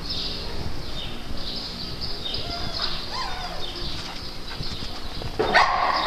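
A pack of dogs moving about together, with small scuffling sounds, and one dog gives a loud bark near the end.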